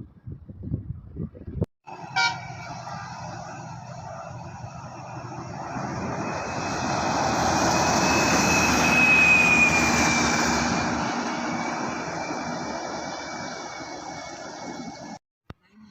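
A bus driving past: engine and tyre noise swell to a peak about halfway through and then fade, with a whine that drops slightly in pitch as it goes by. The sound cuts off abruptly near the end.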